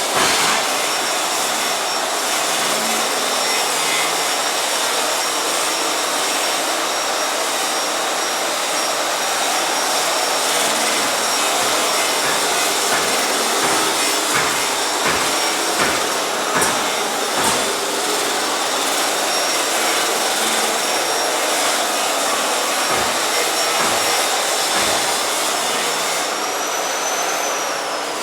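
Industrial washing machine running: a steady whirring rush with a thin high whine over it, and a few light knocks partway through.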